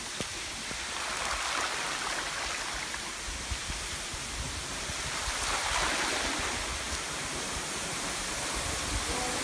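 Rushing water of a rocky stream below a waterfall, a steady hiss that grows slightly louder.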